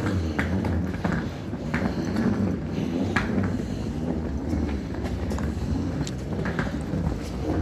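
Footsteps on stone pavement over a steady low street rumble, with sharp clicks every second or so.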